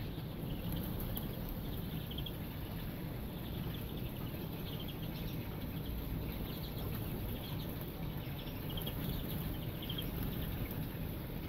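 Greenfinches giving short, scattered chirps, about one every second or two, over a steady low background rumble.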